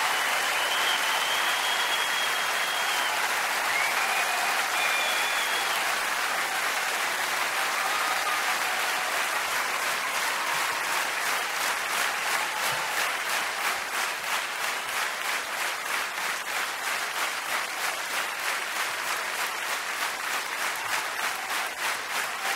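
Large concert audience applauding, with a few high whistles in the first seconds; about halfway through the applause turns into steady rhythmic clapping in unison.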